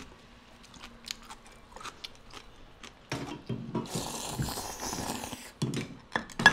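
Somen noodles slurped from a bowl of soup: a few soft clicks and chewing sounds, then a long slurp starting about three seconds in, the loudest sound here.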